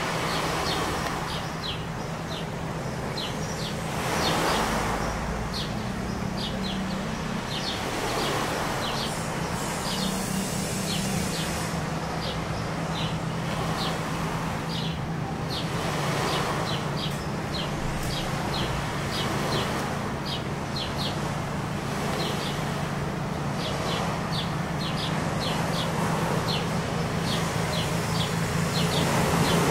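Motor yacht's engines running at a steady low hum, with a rushing noise that swells every few seconds. Small birds chirp in short quick clusters throughout.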